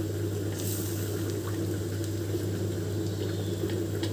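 Coconut-milk curry gravy heating in a pan, gently bubbling with a few soft pops over a steady low hum.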